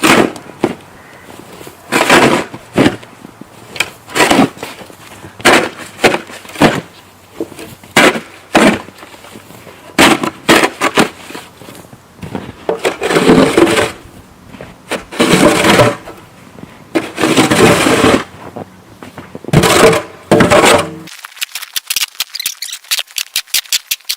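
Snow shovel being pushed and scraped through heavy, deep snow, with a stroke every second or two and some longer scrapes as loads are shoved along. Near the end the sound changes to a quick run of light crackling ticks.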